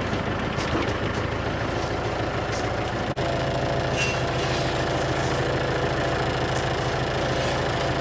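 Snowblower engine running steadily while the machine works. It drops out for an instant about three seconds in, then goes on with a slightly different note.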